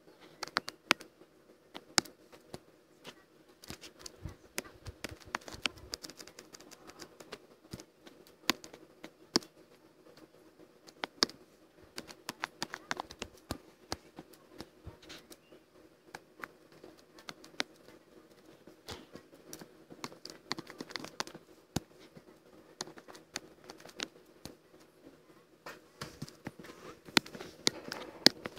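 Irregular light clicks and taps from computer input devices used while drawing, over a steady low hum.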